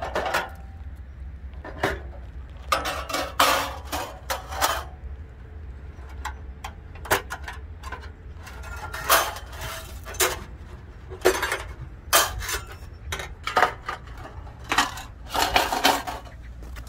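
Irregular metal clanks and rattles as a Streetbag folding fire pit is folded and packed into its carry case, its metal panels and case knocking together, with a dozen or so sharp knocks spread unevenly throughout.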